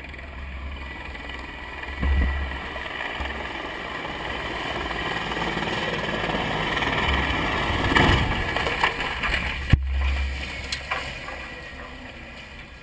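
Steady rumble of a vehicle's engine, with wind noise on the microphone, swelling in the middle. A single sharp crack comes about ten seconds in.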